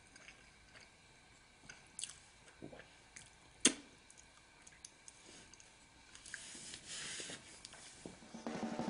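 Faint chewing and mouth noises over webcam microphones, with scattered small clicks and one sharp click about a third of the way in, and a soft rustle a little later. Loud music with drums comes in just before the end.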